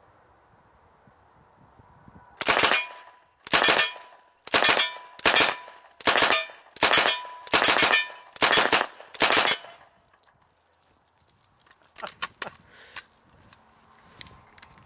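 M3 submachine gun in .45 ACP firing full-auto: about ten short bursts in quick succession over some seven seconds. A few faint clicks follow near the end.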